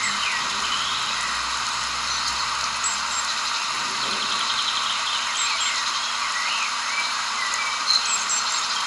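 Nature ambience: a steady hiss with birds chirping over it in short, curving calls, some of them high and brief.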